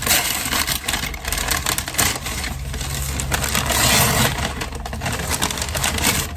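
Gift-wrapping paper being torn and crumpled as a present is unwrapped, a continuous ragged rustling and ripping that swells around four seconds in.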